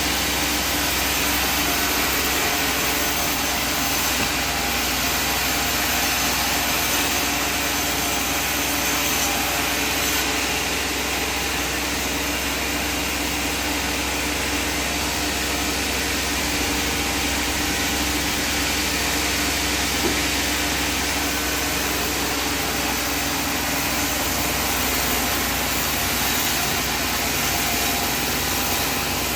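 Sawmill machinery running steadily, an even mechanical noise with a constant hum.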